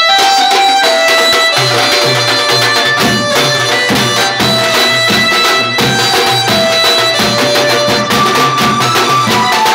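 Banjo-party band music: a melody of long held notes, with a drum beat from a snare-type drum and a large steel drum coming in about a second and a half in.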